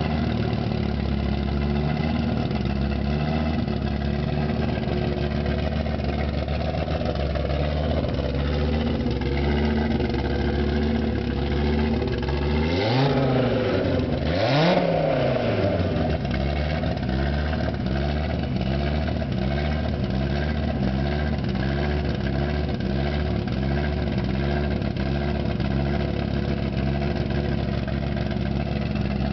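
Car engine through a 4.5-inch open exhaust idling with an uneven, lumpy beat, blipped twice a little before halfway through: two quick revs that rise and fall, the second the louder.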